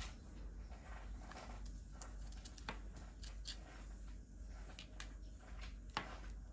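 Scattered light clicks and taps of small seashells being handled and pressed onto cardboard with a hot glue gun, over a faint steady hum.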